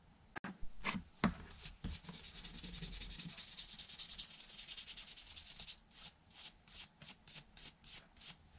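A few knocks as tools and a wooden block are handled, then a brush scrubbed fast back and forth over a wooden clamp block. After about six seconds it changes to separate strokes, about three a second.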